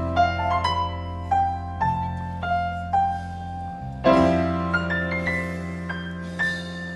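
Piano playing a slow melody of single notes over held low chords, with a new chord struck about four seconds in.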